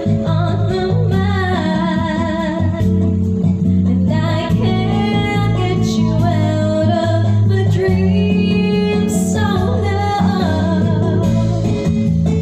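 A woman singing a song through a handheld microphone over a guitar backing.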